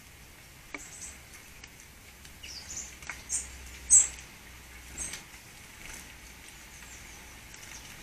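Small garden birds giving a series of short, very high-pitched chirps, the loudest about four seconds in, with a couple of faint ticks.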